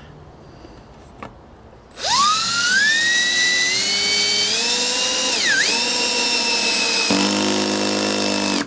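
Milwaukee 2602 cordless drill in screwdriver mode driving a larger screw: about two seconds in the motor spins up with a rising whine, dips briefly under load and recovers. Near the end the sound changes to a rapid buzzing ratchet as the clutch slips at its torque setting, then it stops suddenly.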